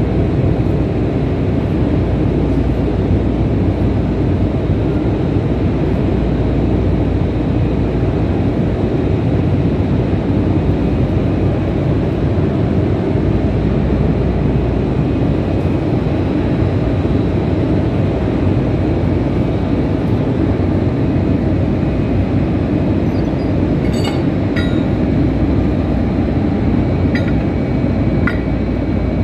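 Steady loud machinery rumble, heaviest in the low range, with a few light metallic clinks about two-thirds of the way through and again near the end.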